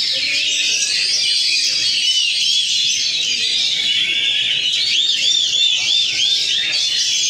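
Several oriental magpie-robins (kacer) singing at once in a dense, overlapping tangle of high whistles and trills. A little after five seconds in, one bird repeats a quick rising-and-falling note about four times a second.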